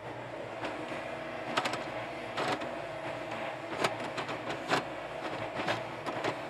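Yanmar YB451 mini excavator's diesel engine running steadily while the machine digs, with irregular sharp metal clanks about once a second from the working boom and bucket.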